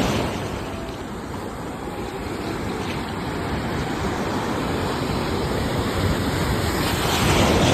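Ocean waves breaking and washing on the shore, one surge fading just after the start and the next building up near the end.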